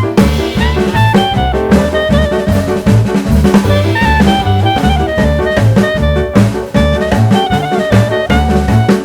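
Upbeat jazz background music with saxophone and brass over a steady swing drum beat and bass.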